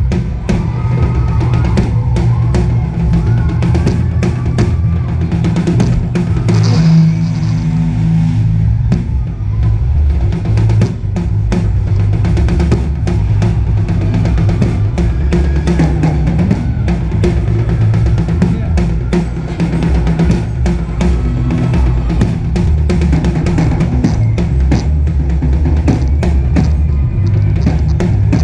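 Live band playing loudly: a drum kit drives a steady beat with kick drum, snare and cymbals over heavy bass notes.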